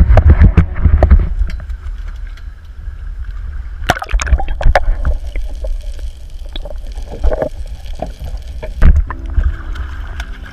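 Sea water splashing and gurgling around an action camera dipped in and out of the water, with a strong low rumble of water and wind on the microphone and a few sharp knocks. Near the end a hooked yellowtail amberjack thrashes and splashes at the surface beside the hull.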